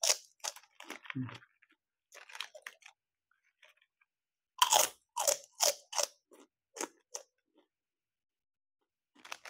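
Crunchy chewing of kerupuk kulit, fried cow-skin crackers: scattered crunches, then a loud run of bites and chews about two a second around halfway through, a short pause, and a few more crunches near the end.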